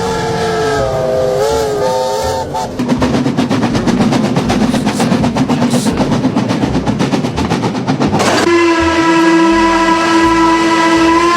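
Steam locomotive: its steam whistle sounds with a wavering pitch, then gives way to fast, rhythmic exhaust chuffing for about five seconds. About eight seconds in, the whistle comes back as one long, steady blast.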